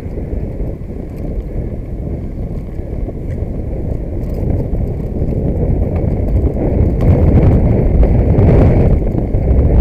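Road and engine noise of a moving car heard from inside the cabin through a dashcam: a steady low rumble that grows louder about seven seconds in.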